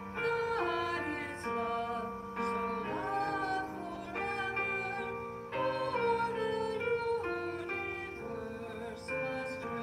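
A hymn sung with instrumental accompaniment, in slow sustained notes that change about every second or so.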